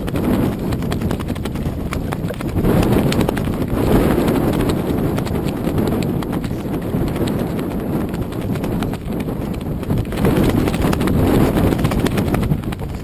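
Loud, surging low rumble of wind and water at a camera mounted on a floating barge, with many small rapid knocks and slaps running through it.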